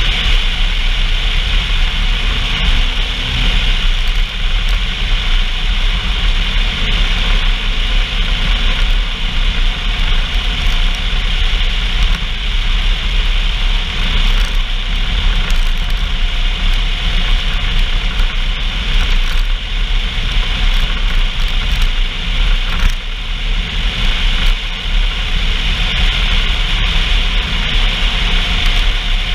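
Off-road vehicle engine running steadily, with a constant low rumble and a hiss over it.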